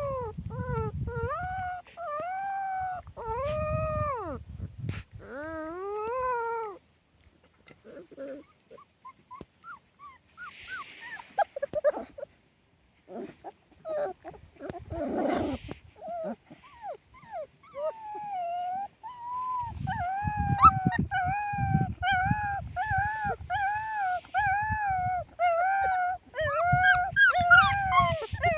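Puppies whimpering and whining: long high cries that rise and fall, then about two-thirds of the way through a fast, steady string of short whines, with a low rustling underneath.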